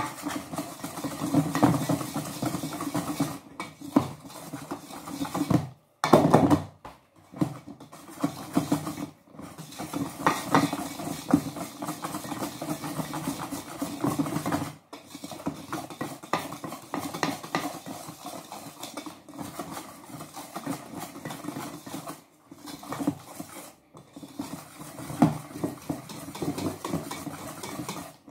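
Wire balloon whisk stirring a flour mixture in a stainless steel bowl, its wires scraping and clinking against the metal in a continuous rhythmic clatter that stops briefly a few times.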